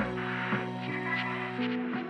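Background music with sustained chords and a few faint percussive ticks; the bass drops out right at the start and the music grows gradually quieter.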